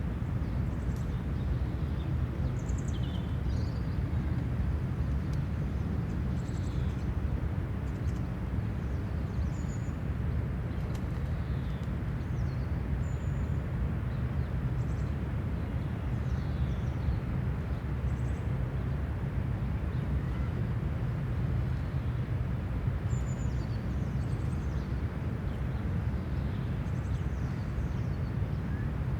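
City park ambience: a steady low rumble under scattered short bird chirps and calls.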